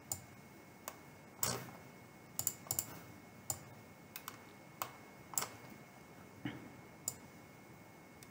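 Faint computer mouse clicks, about a dozen short sharp clicks at irregular intervals, some in quick pairs.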